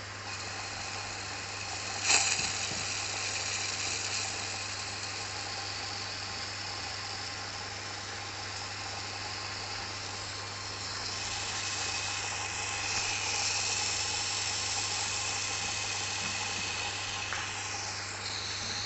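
Water trickling from a narrow PVC pipe into a wider PVC pipe of a hydroponic system, an even hiss over a steady low hum. A sharp click about two seconds in.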